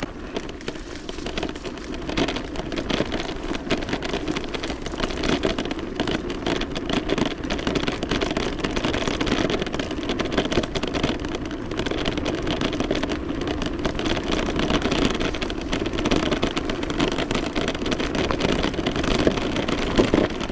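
Mountain bike descending a dirt trail: steady rolling noise from the tyres and air over the camera microphone, with constant small rattles and knocks from the bike over the rough ground.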